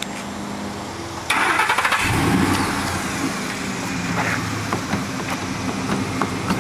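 Pickup truck engine starting a little over a second in with a short loud burst, then running at idle.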